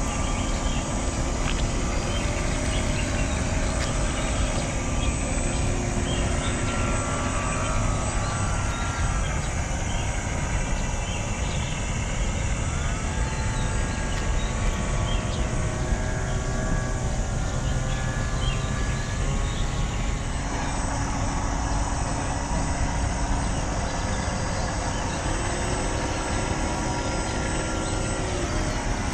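Motors of a radio-controlled model catamaran ferry whining, their pitch rising, holding and falling again several times as the throttle is opened and eased, over a steady low rumble.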